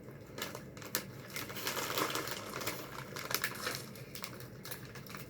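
Plastic candy packaging crinkling and rustling as it is handled, with a run of small sharp clicks and crackles.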